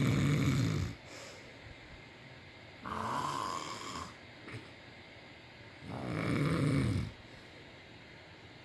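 Snoring in a regular breathing cycle: a long, low snore at the start and another about six seconds later. Between them, about three seconds in, comes a shorter, higher-pitched breath.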